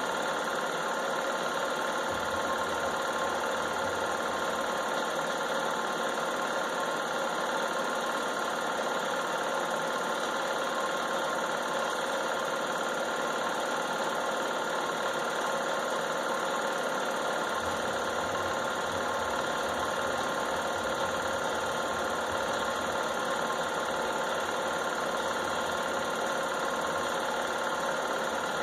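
Home-movie film projector running: a steady mechanical whir and clatter from its motor and film transport, holding an even level with a constant hum in it.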